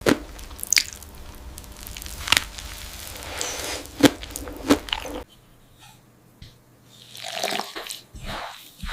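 Food ASMR sound effects for a glass-like 'crystal' pizza: several sharp clicks and cracks over a steady hiss, which stops about five seconds in, then a few softer swelling noises near the end.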